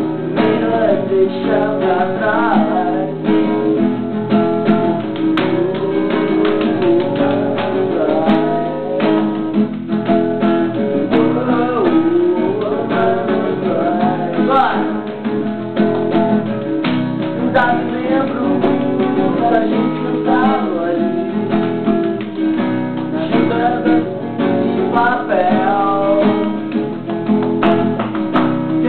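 Acoustic guitar strummed steadily, with singing over it.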